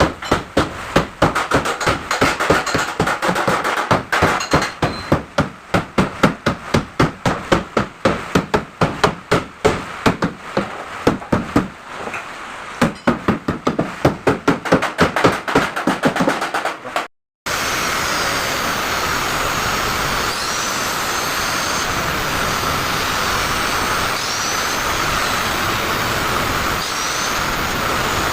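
Rapid hammer blows on the sheet-metal body of a Mitsubishi L300, about three to four strikes a second, beating out a crumpled lower door pillar. After an abrupt cut near the end, a steady rushing noise takes over.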